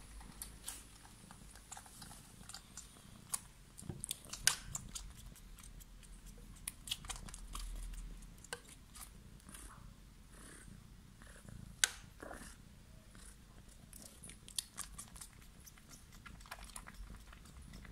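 Domestic cat grooming itself up close: irregular wet licking and nibbling clicks.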